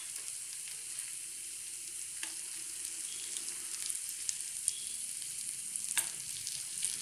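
Prawns frying in coconut oil and masala in a pan: a steady sizzle with scattered small pops. In the second half metal tongs turn the prawns in the pan, with a sharp tick about six seconds in.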